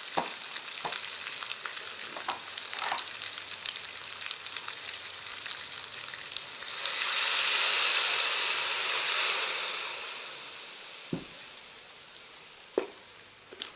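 Spiced chicken-and-chana masala frying in hot oil in a pot, sizzling steadily while being stirred, with a few knocks of the spoon on the pot. About seven seconds in the sizzle swells loudly, then dies down over the next few seconds.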